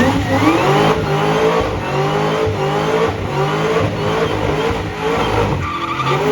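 High-performance car engine at full throttle: the revs shoot up just as it starts, then keep climbing and dropping back in short rises about twice a second.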